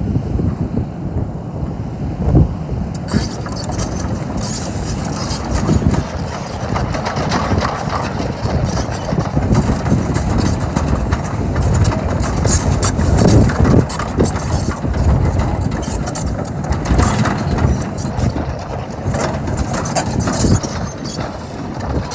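Case CX330 long-reach hydraulic excavator's diesel engine running, with metallic clanking and rattling that starts about three seconds in.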